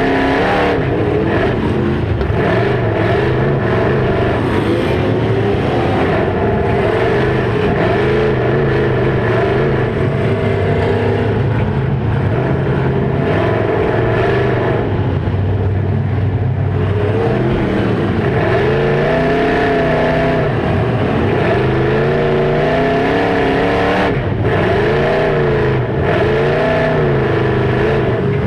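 Demolition derby car engines running loud and revving, their pitch rising and falling over and over.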